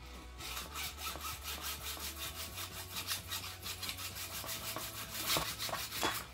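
Hacksaw cutting through a metal Bendybull stair-nosing trim held in a steel mitre guide, in rapid, even back-and-forth strokes. It starts about half a second in, and the last strokes near the end are the loudest as the blade finishes the cut.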